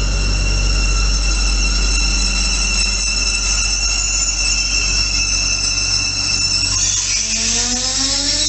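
Train wheels squealing in a steady high pitch as a double-deck regional train rolls slowly past. About seven seconds in the squeal breaks up, and a rising whine takes over.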